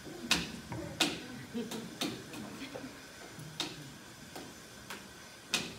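A series of sharp clicks and taps at irregular intervals, the loudest about a second in and near the end, over a faint low murmur.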